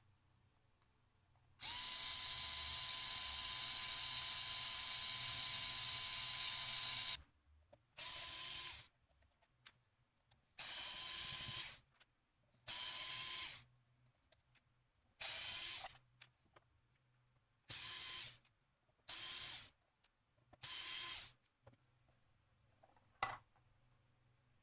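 Small cordless power tool motor running with a steady whine: one long run of about five seconds, then seven short bursts of about a second or less each. A single sharp click comes near the end.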